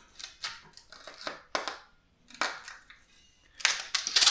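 Adhesive tubeless rim tape being pulled off its roll and pressed into an aluminium rim bed: an irregular run of sticky crackles and clicks, growing louder and denser near the end.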